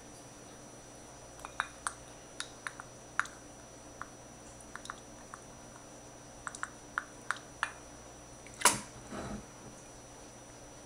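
Fish sauce poured from its bottle into a small measuring cup: a string of small clicks and drips, then near the end a sharp knock and a short splash as the cup is tipped into a bowl.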